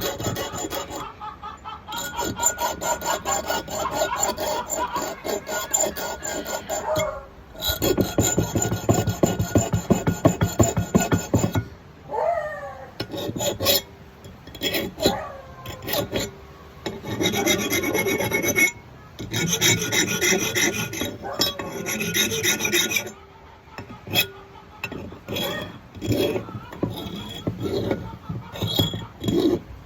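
Hand filing a small steel blade, rapid back-and-forth strokes in runs of a few seconds with short pauses between.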